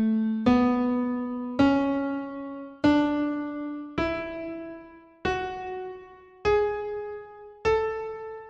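A piano plays the A major scale upward over one octave, A to A (A, B, C♯, D, E, F♯, G♯, A), one struck note about every second, each fading before the next. The top A rings on at the end.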